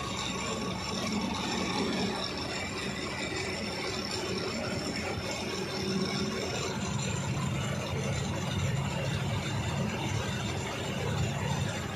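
Bus engine running steadily with road noise, heard from inside the driver's cab while cruising along the highway.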